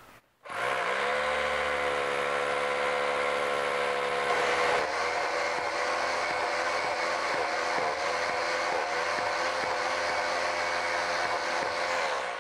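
Hammer drill with a 5/16-inch masonry bit drilling through rigid foam board into a concrete wall: the motor spins up about half a second in and runs steadily; from about five seconds in its pitch dips again and again as the bit is worked in and out of the hole to clear out the dust, until it stops near the end.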